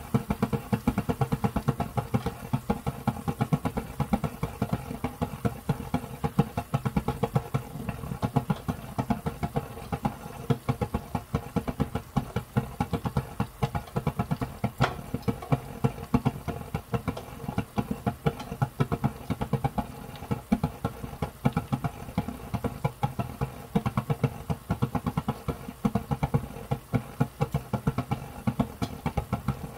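Thick sweet-and-sour sauce with pork simmering in a frying pan, bubbling in rapid, irregular low pops over a steady hum.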